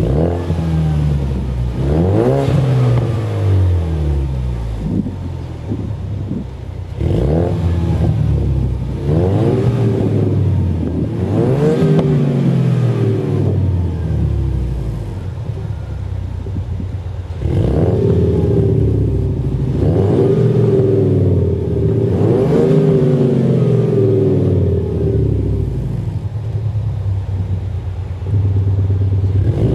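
Ford Mustang's 2.3 EcoBoost turbocharged four-cylinder blipped repeatedly from idle, its note voiced through a Panthera Sound Booster active-exhaust speaker that plays a synthetic V8-style sound. Each rev climbs quickly and falls back to a steady idle, with longer idle stretches between some of the blips.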